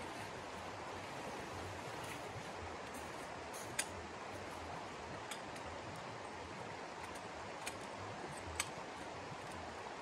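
Steady rushing of flowing water from a nearby stream, with a few sharp clicks standing out over it.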